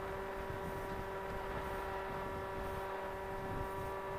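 Volantex Ranger 1600 RC plane's electric motor and propeller running at steady throttle in flight: an even whine with several overtones over a haze of wind noise.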